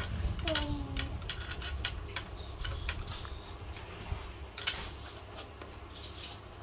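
Scattered light clicks and knocks of a hand tool and metal parts as a children's balance bike is put together by hand, over a steady low hum. A brief falling voice sound comes just after the start.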